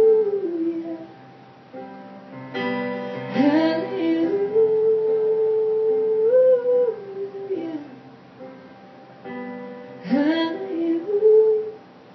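A woman singing long held notes that slide up and down, over guitar accompaniment, in a slow ballad.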